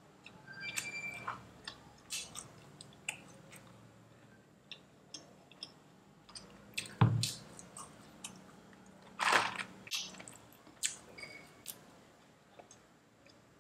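Close-miked chewing and crunching of chicken nuggets and French fries, with many short wet mouth clicks and crackles. A dull thump about seven seconds in is the loudest sound.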